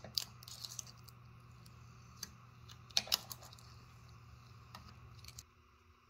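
Vinyl decal and its transfer paper crinkling and crackling under the fingers as the decal is peeled and pressed onto a car's trunk lid: a scatter of sharp crackles, bunched near the start and again around three seconds in. A faint steady low hum lies under them and cuts out near the end.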